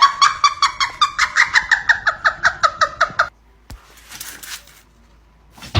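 An animal giving a rapid run of short high-pitched calls, about seven a second and slowly falling in pitch, that stops after about three seconds.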